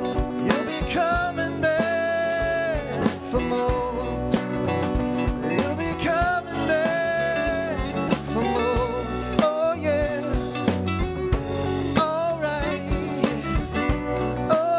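Live rhythm-and-blues band playing: electric guitars and keyboard over a steady beat, with a lead line of long held notes that waver and bend.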